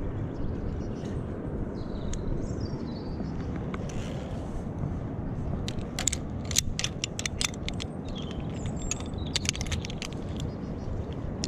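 Steel carabiners and a Petzl pulley clipping and rattling against a steel zipline cable, a quick run of metallic clicks about six seconds in and another about nine seconds in, over a steady low rumble of wind on the microphone.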